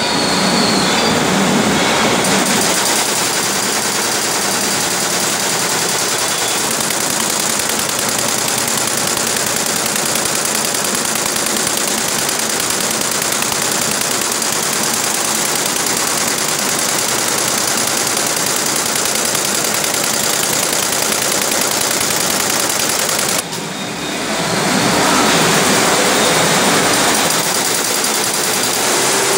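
Multi-head computerised embroidery machine running at speed: its needle bars make a steady, rapid mechanical clatter. The clatter dips briefly about twenty-three seconds in, then picks up again.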